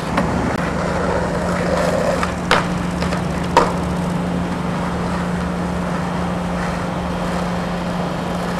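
Skateboard wheels rolling on concrete, with three sharp clacks of the board striking the ground in the first four seconds. A steady low hum runs underneath.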